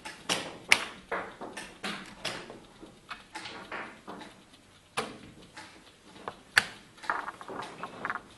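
Blitz chess being played: wooden chess pieces set down on the board and analog chess clock buttons pressed in quick succession, a run of sharp, irregular clicks and knocks.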